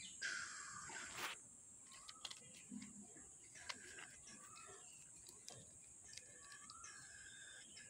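Faint clicks and light knocks of plastic toy vehicles being handled and shifted on a dirt floor, with a few short high chirps now and then.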